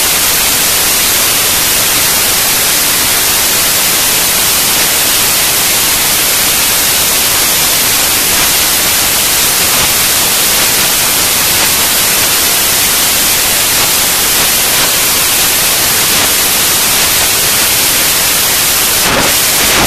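Loud, steady static hiss, even and unbroken, like white noise.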